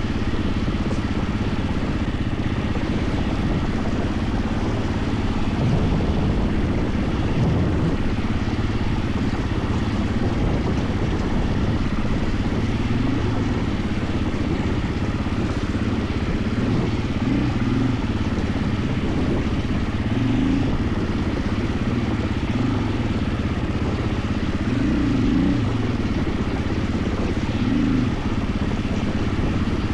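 KTM 450 EXC enduro motorcycle's single-cylinder four-stroke engine running while riding off-road, its revs rising and falling again and again in the second half.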